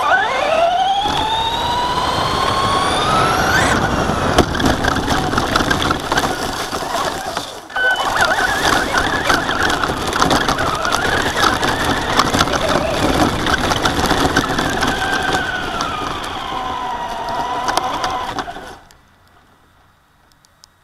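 Traxxas Slash RC truck's electric drive motor and gears whining under throttle, over the rattle of its tyres on pavement and grass. The whine rises in pitch as it accelerates over the first few seconds, rises and falls with throttle after that, and drops out briefly about eight seconds in. It stops about nineteen seconds in when the truck halts.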